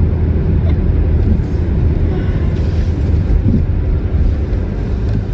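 A Range Rover driving through deep floodwater: its engine runs under a steady low rumble while water rushes and sprays off the wheels, with wind buffeting the microphone.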